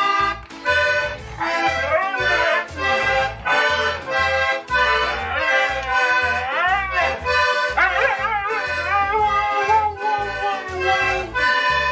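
Toy accordion played in short repeated chords, with a dog howling along over it. The howl comes in about a second and a half in and wavers up and down, ending in a longer held note near the end.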